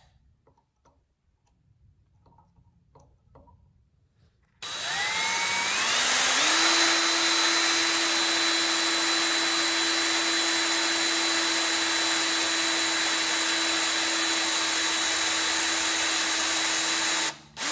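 Cordless drill boring a small pilot hole into a motorcycle handlebar. It starts about four and a half seconds in, spins up over a second or two to a steady whine, runs steadily, and stops shortly before the end with one brief blip of the trigger.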